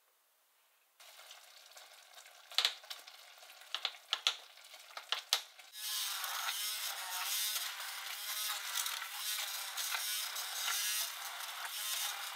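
Immersion hand blender running in a stainless steel pot, puréeing soft-boiled potatoes; its motor pitch wavers up and down as it churns. Before the blender starts, about six seconds in, there are a few sharp clicks and knocks.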